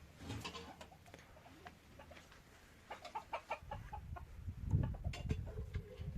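Short animal calls, a quick series of them starting about three seconds in, with low thumps near the end.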